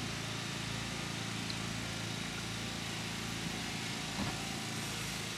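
Steady low motor hum.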